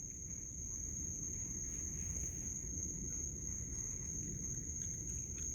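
Steady high-pitched chorus of night insects, one unbroken shrill tone, over a low background rumble.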